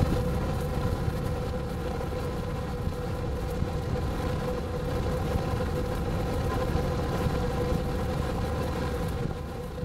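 Car engine idling, heard from inside the cabin: a steady low rumble with a constant hum over it.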